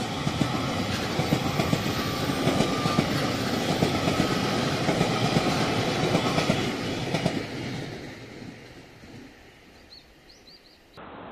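Electric multiple-unit local train passing close by on ballasted track, its wheels clacking over the rail joints. The sound stays loud for about seven seconds, then fades away after the last car has gone by.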